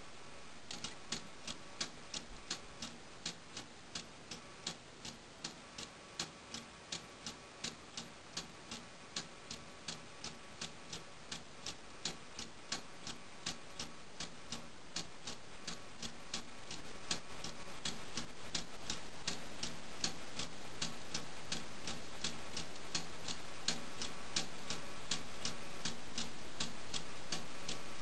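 Meccano balance-wheel clock ticking steadily as its spring-loaded balance wheel swings and the escapement lets the clockwork-driven train advance, the ticks starting about a second in.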